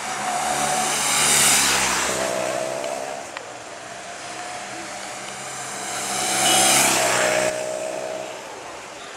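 Two police escort motorcycles passing close by one after the other, about five seconds apart, the engine sound swelling as each approaches and dropping in pitch as it goes past.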